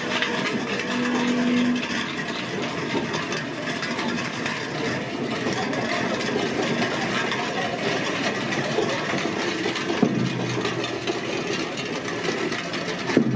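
Replica cannons on wooden-spoked carriages rolling over the paved street, a steady rattling rumble from the wheels. A low hum joins about ten seconds in.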